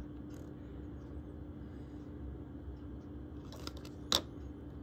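Quiet room tone with a steady low hum, broken by light handling of a plastic diamond-painting keychain: a few faint ticks, then one sharper click about four seconds in as fingers touch the rhinestone-covered surface.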